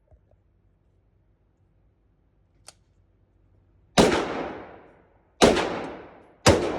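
Glock 19 Gen 5 9mm pistol firing three shots, the first about four seconds in and the next two roughly one and a half and one second apart. Each shot trails off in a long echo.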